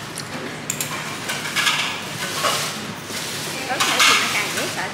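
Indistinct voices of people talking in the background, with general noisy bustle.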